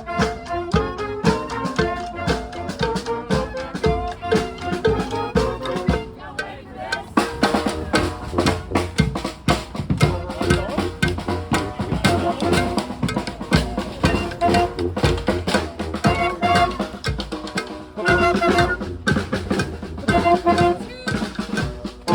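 Street band playing a marching tune: brass horns holding notes over snare and bass drums. The drumming grows busier and louder about seven seconds in.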